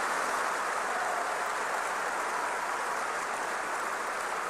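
A large audience applauding, many hands clapping in a dense steady patter that eases off slightly near the end.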